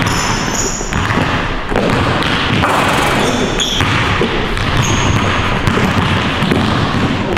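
Basketball being dribbled and bounced on a hardwood gym floor during a pickup game, with a few short high sneaker squeaks.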